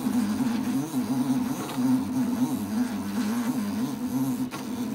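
Motor of a home-built Arduino rotary indexer running as it turns the table through its rotation against a stationary drive belt. It makes a steady hum whose pitch wobbles up and down.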